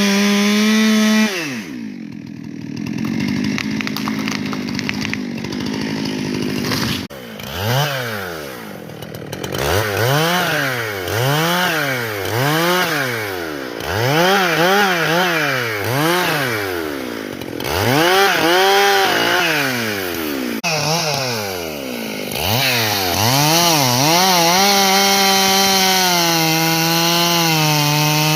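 Stihl two-stroke chainsaw at full throttle, dropping to idle about a second and a half in. Its engine is then revved up and down again and again, about every couple of seconds, in short cuts, and near the end it holds steady full throttle through a longer cut.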